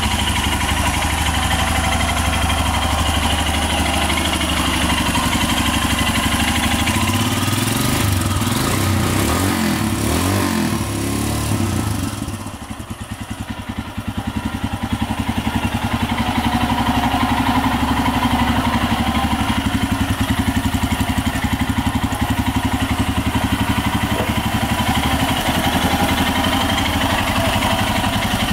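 Royal Enfield Himalayan's single-cylinder engine idling with an even pulse, the revs rising and falling briefly about eight to twelve seconds in.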